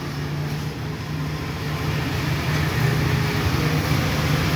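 A motor vehicle engine running with a steady low hum amid road traffic, growing a little louder about halfway through.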